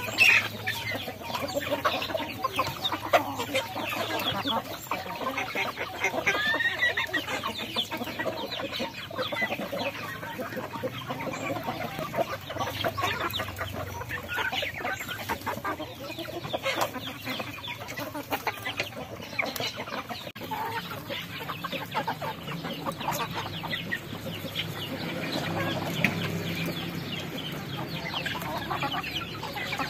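A large flock of chickens clucking and calling continually while feeding together at trays, with many short sharp ticks throughout.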